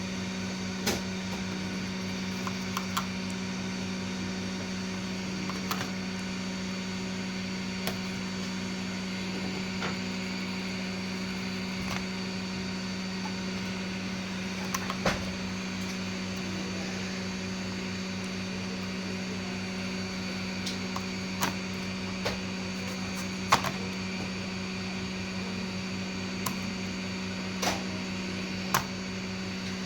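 Hot air rework station's blower running with a steady hum and airy hiss while it heats the VGA port's solder joints to desolder it from the motherboard. Scattered short clicks and taps, loudest about a second in, around 15 s and around 23 s.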